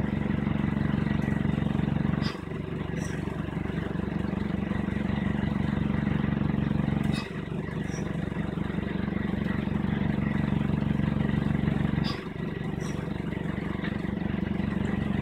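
A machine running with a steady, pitched hum that dips briefly about every five seconds, with faint ticks throughout: the noise the "SK" makes while running on yellow.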